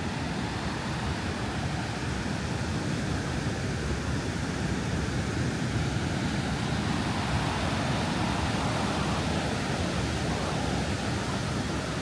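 Steady rushing wash of sea surf breaking on a beach, a little louder about halfway through.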